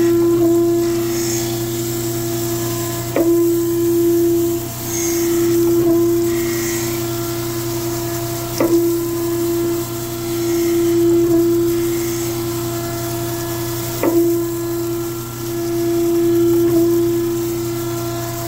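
Okamoto wet surface grinder running with coolant on, its wheel grinding a hollow prism straightedge on a cleanup pass, now cutting at both ends. The grinding rises and falls as the table carries the work back and forth under the wheel, over a steady hum from the spindle. A sharp knock comes about every five and a half seconds.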